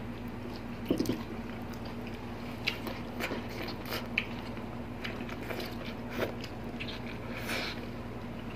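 Close-miked eating sounds: soft, wet chewing and biting of food eaten by hand, including cooked sweet potato leaves, with scattered short mouth clicks and smacks. A faint steady low hum runs underneath.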